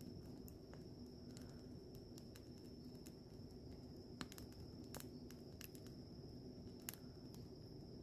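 Wood campfire crackling quietly, with sharp pops at irregular intervals, two of them louder about four and seven seconds in.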